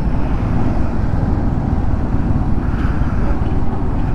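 A motorcycle on the move: a steady, loud rumble of wind on the microphone mixed with engine and road noise.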